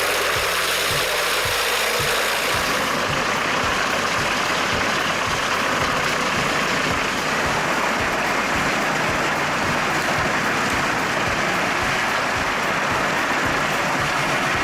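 Heavy machinery running steadily with a loud even rushing noise, over a string of irregular low knocks. The very top of the sound thins out about three seconds in.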